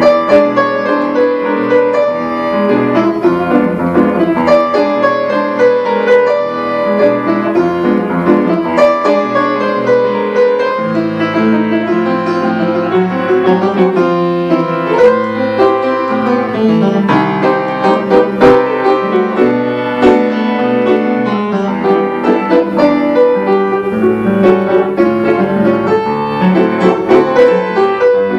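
Upright piano played solo: a lively Brazilian popular piece, with many notes sounding together and sharp key strikes throughout.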